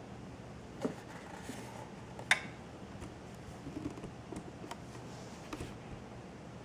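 Quiet room tone with a low steady hum, broken by a few light clicks and knocks, the sharpest a little after two seconds in.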